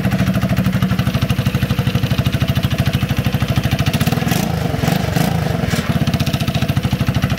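Hammerhead Twister go-kart engine idling with a steady pulse. About four seconds in it is blipped a few times, the throttle worked by hand at the carburettor because no throttle cable is connected.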